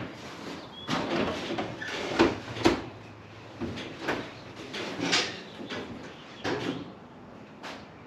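Irregular clunks and knocks of the old pickup's cab door and cab being handled, about nine over the stretch, the loudest a pair a little over two seconds in.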